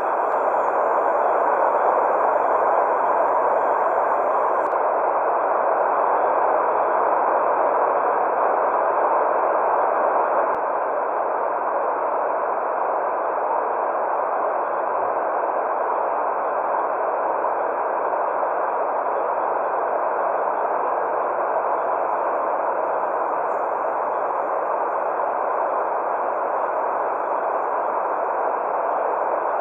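Steady white noise for a baby's sleep: an even, muffled hiss without sharp highs, dropping slightly in level about ten seconds in.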